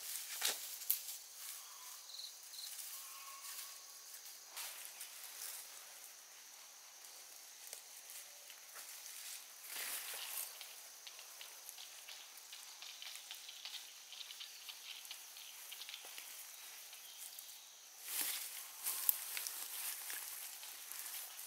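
Rustling and crackling of leafy peanut plants being pulled up by hand and shaken, with louder flurries about half a second in, around ten seconds and again near the end.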